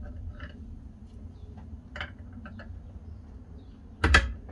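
Metal hand tools being handled on a workbench: a few light clicks and taps, then one sharp, loud clank about four seconds in, over a low steady rumble.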